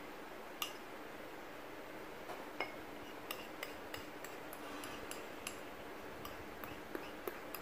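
Faint, scattered light clinks and taps of a ceramic mixing bowl against a ceramic ramekin as thick batter is poured and scraped out of it.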